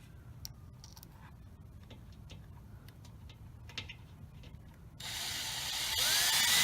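Faint handling clicks, then about five seconds in a power drill runs for under two seconds with a rising whine. It is trying to drive a self-tapping metal screw that won't bite.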